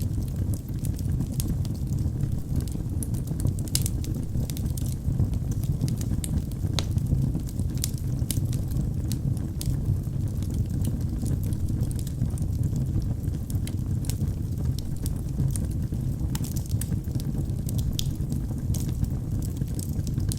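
Wood fire burning in a fireplace: a steady low rush of flames, with sharp crackles and pops coming irregularly, several a second.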